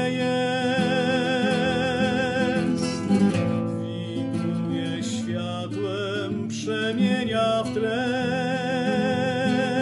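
A man singing a slow song in Polish with long held, wavering notes, accompanied by a strummed nylon-string classical guitar.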